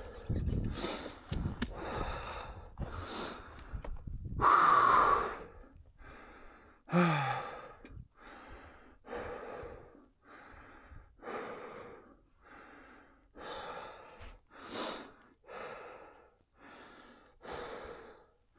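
A rider breathing hard from exertion, panting in and out about once a second, with a loud strained breath about five seconds in and a short grunt just after, while righting a heavy dropped motorcycle. Some knocks and scuffing can be heard in the first few seconds.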